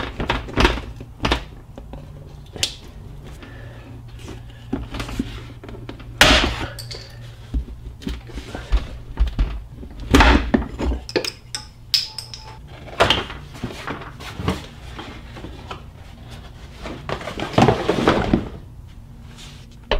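Plastic push-type trim fasteners being pried out with a trim removal tool: irregular clicks, snaps and knocks, one louder knock about six seconds in, over a steady low hum.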